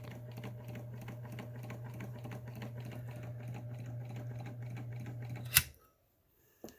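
Bel Air Model 620 electric sewing machine running, nice and quiet: a steady motor hum with rapid, even needle-mechanism ticking. It stops with a sharp click near the end, followed by one faint click.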